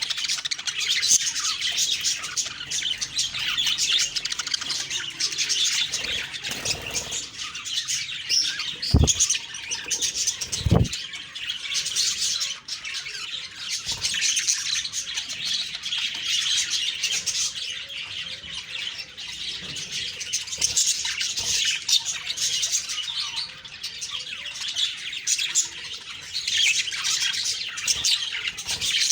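Budgerigars chattering and chirping busily without pause, with two short knocks about a third of the way in.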